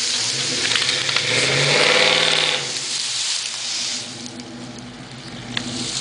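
Vehicle engine revving up and back down about two seconds in, over a loud rushing noise that eases off after about four seconds.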